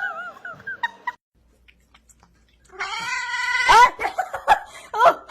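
A cat yowling: a wavering cry in the first second, then after a short pause a long drawn-out yowl followed by several short rising cries.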